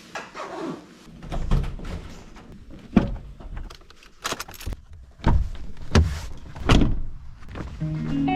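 A handful of separate knocks and thumps, irregularly spaced, with a falling glide in the first second. Music with sustained notes comes in near the end.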